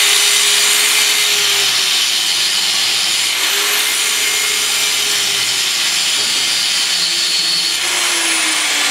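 Angle grinder cutting a weld bevel into a broken steel crankshaft, a steady high grinding hiss over the motor's whine. The motor pitch dips and recovers a couple of times as the disc works, and falls off near the end. The shaft grinds hard, like alloy steel rather than cast iron.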